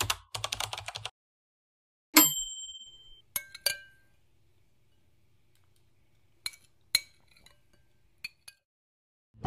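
Editing sound effects: a rapid run of light clicks for about a second, then a single bright chime-like ding about two seconds in that rings out and fades. A handful of short, scattered clicks and small clinks follow.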